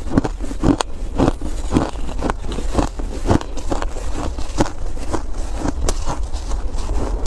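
Foam ice being bitten and chewed, a steady run of crisp crunches about two a second.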